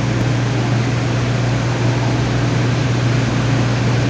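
Reef aquarium pumps and filtration running: a steady low hum under a constant hiss.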